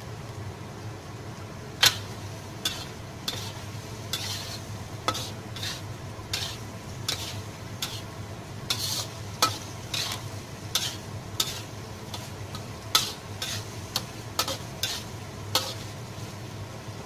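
A ladle scraping and knocking against a wok as minced pork and diced bean curd in sauce are stirred. The strokes come irregularly, roughly one or two a second, starting about two seconds in.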